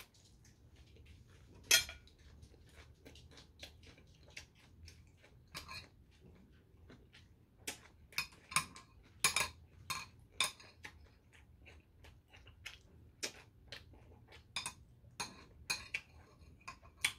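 Metal spoon clinking and scraping against ceramic bowls and a plate. There is one sharp clink about two seconds in, then a run of clinks, several a second, from about halfway through.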